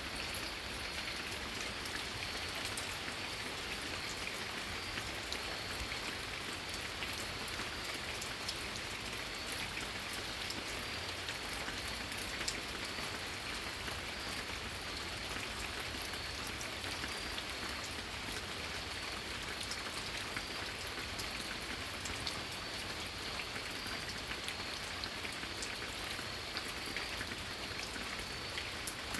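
Steady rain falling and pattering on surfaces, a continuous hiss dotted with many small drop ticks.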